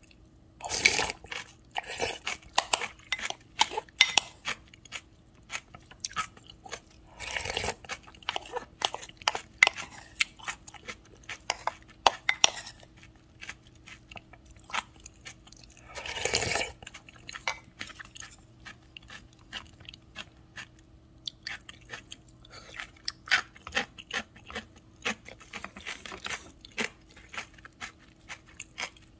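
Close-miked eating of udon broth and toppings from a spoon: wet chewing and smacking throughout, broken by three longer slurps, the first about a second in, one near the middle and one just past halfway.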